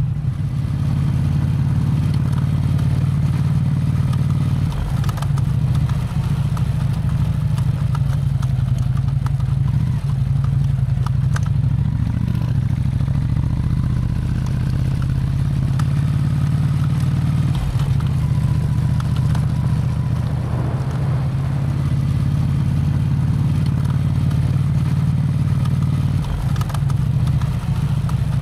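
Motorcycle engine running steadily at an even speed, heard from on the bike while riding.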